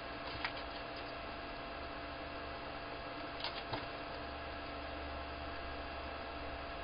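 Steady background hum and hiss, with a faint click about half a second in and two more close together a little past three and a half seconds.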